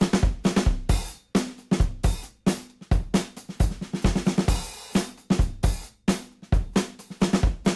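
Background music: a drum kit playing a steady beat on kick, snare, hi-hat and cymbals, with no other instruments.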